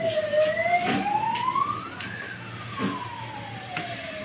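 A siren wailing, its pitch sliding low, climbing for about two seconds, then sliding low again. Scattered light clicks from metal parts being handled sound over it.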